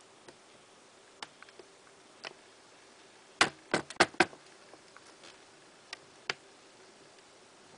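Newborn kittens suckling at their mother cat, making scattered soft wet clicks and smacks, with a quick run of five louder clicks about halfway through, over a faint steady hum.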